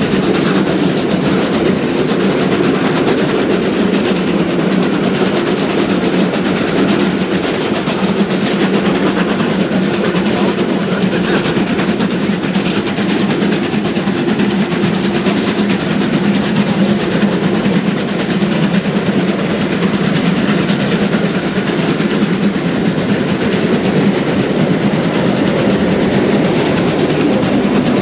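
Two steam trains running side by side at speed: a loud, steady mix of rapid locomotive exhaust beats and wheels on rails, with a low hum underneath.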